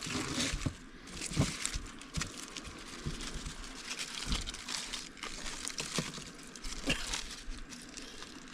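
Cutlery and plates handled while eating, heard as scattered light clicks and knocks at irregular intervals.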